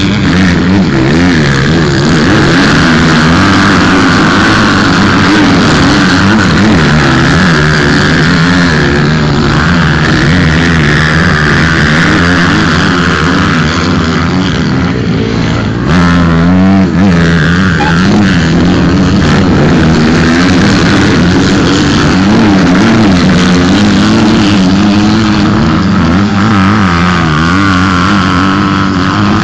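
Motocross bike engines revving loudly and continuously, pitch rising and falling with the throttle as the bikes pass through a corner one after another.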